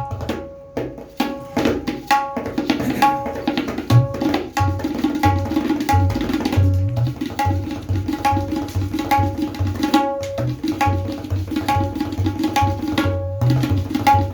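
Tabla being played in a steady rhythmic pattern: deep bass strokes from the bayan mixed with ringing pitched strokes from the dayan, tuned to about C#4.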